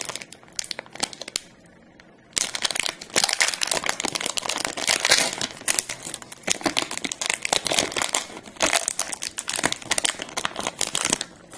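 A trading-card pack wrapper being torn open and crumpled, a dense run of crinkling with a short pause about a second and a half in.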